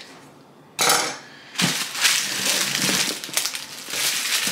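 Cardboard boxes and packaging being handled: a sharp rustle or knock about a second in, then continuous rustling and shuffling.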